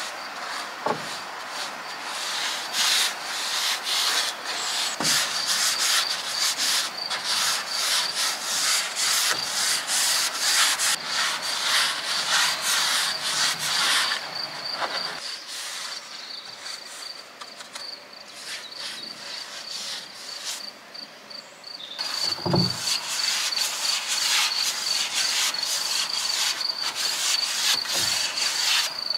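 Rapid, repeated rubbing strokes on a surface in two long spells, quieter for several seconds in the middle, with a few dull knocks, the loudest about two-thirds of the way through. A steady high insect chirring runs throughout.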